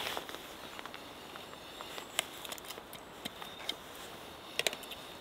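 Knife and fork clinking and scraping on a plate in a scatter of short sharp clicks, the loudest pair a little before the end, over a faint steady woodland hiss.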